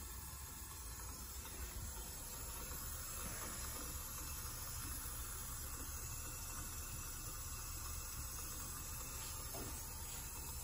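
Steady low-level hiss with a low hum underneath, unchanging and without distinct events.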